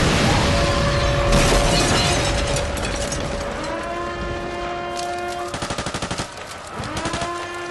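War sound-effects mix: a rumbling blast fading out, crackling gunfire, then a rapid machine-gun burst about five seconds in. Under it, sustained wailing tones slide up and hold, twice.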